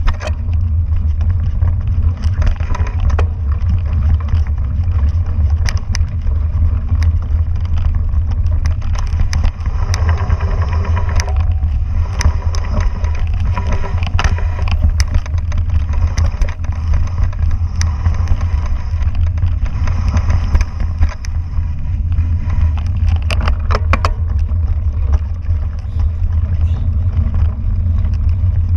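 Mountain bike ridden over a bumpy forest dirt trail, heard through a mounted action camera: a steady low wind buffeting on the microphone, with frequent rattles and knocks from the bike jolting over roots and ruts.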